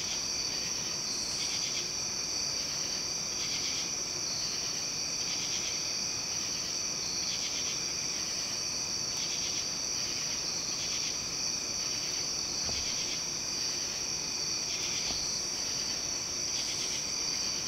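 Night insect chorus: a steady high-pitched trill, with another insect chirping in short pulses about once a second.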